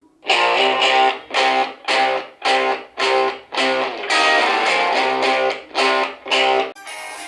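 A guitar-driven song played loudly through a small BTS-06 suction-cup Bluetooth speaker, full and with bass, its chords pulsing about twice a second. Near the end it switches to the quieter, thinner sound of the same music from the smartphone's built-in speaker.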